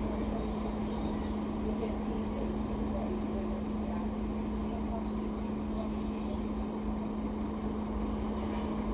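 Double-decker bus running along the road, heard from inside the cabin: a steady drive hum with one constant tone over low road rumble.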